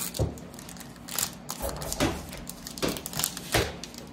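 Foil sports-card pack wrapper being torn open and crumpled by hand: a run of sharp crinkles and crackles, about five in a few seconds.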